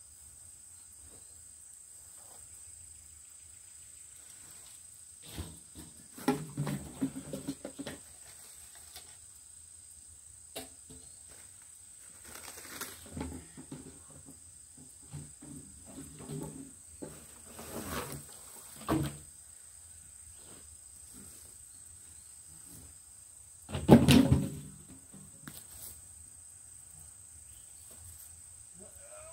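Debris and cut weeds being picked up and moved by hand: rustling, with scattered knocks and clatters in bursts and one loud clatter late on.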